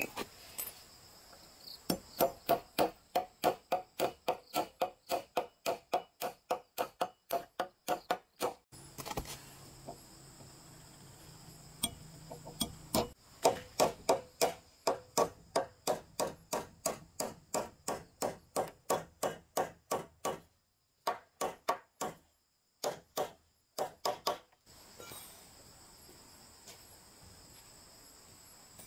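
A hammer driving a nail into a wooden plank, with the metal-on-metal ring of each blow. The blows come in two long runs, three to four a second, with a pause of a few seconds between them, then a few spaced blows before they stop a few seconds before the end.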